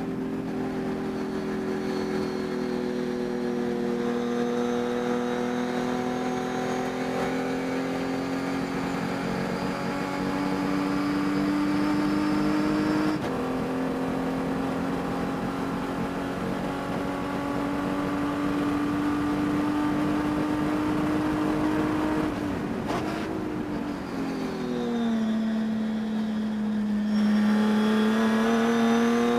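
Race engine running at high revs, its pitch climbing slowly with a small step down about halfway through and a deeper drop near the end before it climbs again. The engine carries a high-RPM miss that the owner could not cure by changing parts.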